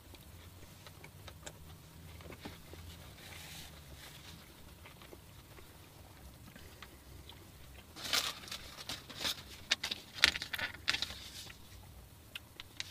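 Paper wrapping crinkling and rustling as it is handled, in a run of sharp crackles starting about eight seconds in and lasting several seconds. Before that there is only a faint low hum.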